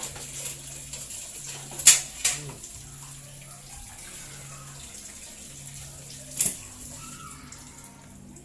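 Liquid running or pouring, with three sharp clinks: two close together about two seconds in, one more about six and a half seconds in.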